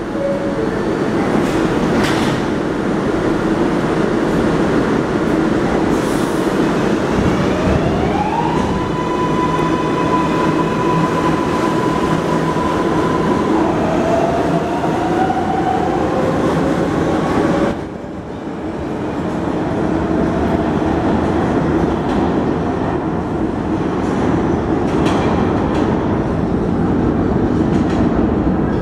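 R142A New York City subway train on the 6 line pulling out of the station: a steady rumble of wheels on rail, with an electric motor whine that rises in pitch about eight seconds in, holds for several seconds, then slides lower. The sound loses its brightness abruptly about eighteen seconds in, and the rumble carries on.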